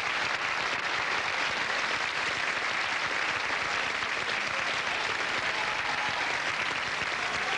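Audience applauding steadily at the end of a competition dance.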